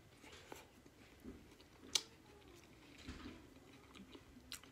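Faint chewing of a mouthful of boiled food, with a few small clicks, the sharpest about two seconds in.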